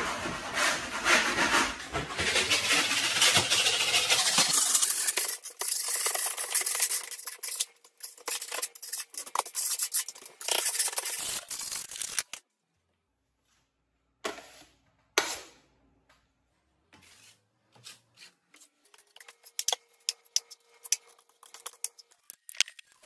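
A steel mud knife scraping over painted wood wall paneling as joint compound is worked on, a dense rough scraping for about twelve seconds. It stops suddenly, and after a short silence come a few scattered light taps and clicks.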